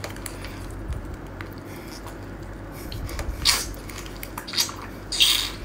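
Wet squelching and sucking as a thick tentacle of a cooked octopus in red-oil sauce is bitten into and eaten, with a few louder wet smacks in the second half.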